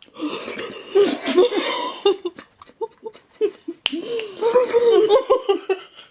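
Two women laughing hard with their mouths full of grape jelly, in short repeated bursts, quieter for a moment in the middle.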